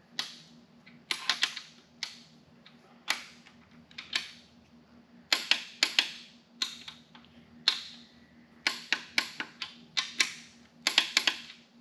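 Click-type torque wrench ratcheting and clicking as main bearing cap bolts are brought up to torque: sharp metallic clicks in irregular groups, several in quick pairs.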